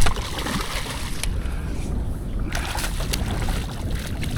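Wind rumbling on the microphone aboard a small fishing boat, with a few light knocks and clicks and a brief burst of hiss midway.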